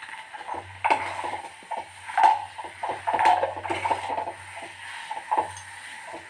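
A metal spoon scraping and knocking irregularly against a metal kadhai while stirring and mashing spiced potato filling as it fries.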